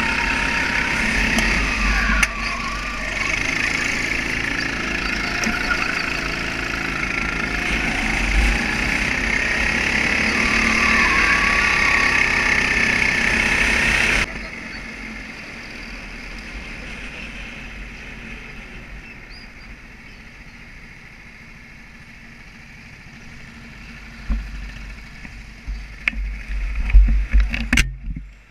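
Kart engine running at racing speed, its pitch rising and falling through the corners, with wind rushing over the helmet-mounted microphone. About halfway the engine sound drops away suddenly as the kart enters the pit lane, and near the end there are loud thumps and rubbing from gloved hands at the helmet camera.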